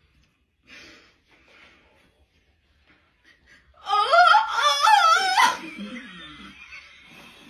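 A few soft breathy snickers, then about four seconds in a loud burst of high-pitched laughter with a wavering pitch, lasting about a second and a half and trailing off into quieter laughing.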